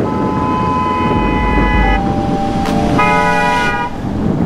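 Vehicle horns honking in traffic: a long steady blast, a lower-pitched one overlapping its end, then a shorter blast about three seconds in. Under the horns is the constant rumble of wind and engine noise on a moving motorcycle.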